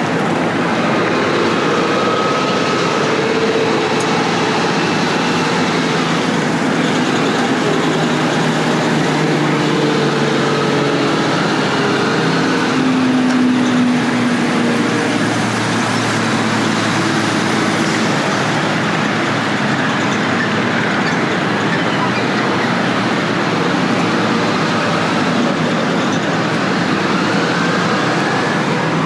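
Steady rumble and hiss of a moving vehicle heard from inside, with faint engine or running-gear tones that drift slowly in pitch.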